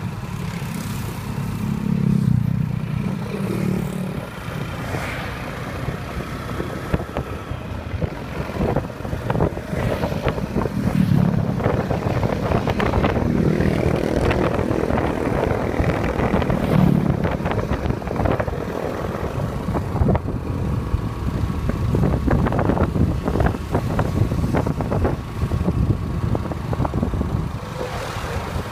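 A motorcycle tricycle's engine running while under way, swelling in bursts as it pulls, with wind buffeting and many short rattles and knocks from the ride over the concrete road.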